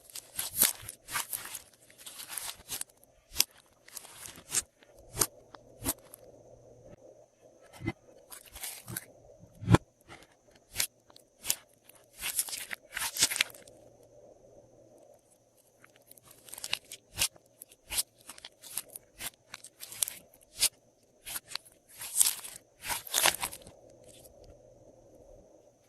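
Hands squishing and mixing glossy slime: irregular sticky clicks and pops, with several short runs of rapid crackling.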